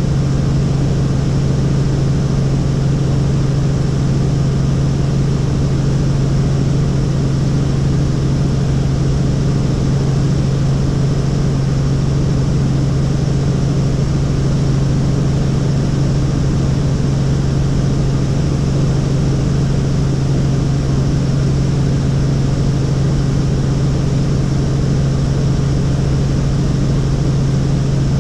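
Helicopter in flight: steady rotor and engine noise with a strong low drone, holding an even level throughout.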